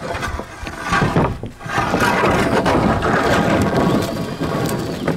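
A wooden 2x4 board dragged along a mobile home's metal roof, its end scraping over the rough, peeling roof coating with a loud, continuous grating, broken by a few knocks.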